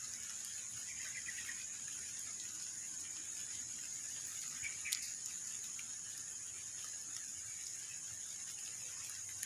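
Quiet rural ambience with a steady high-pitched insect drone, broken only by a faint chirp and a single small click about halfway through.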